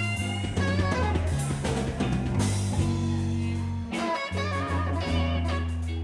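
Blues band playing live: electric guitar lines with bent, wavering notes over bass and drum kit.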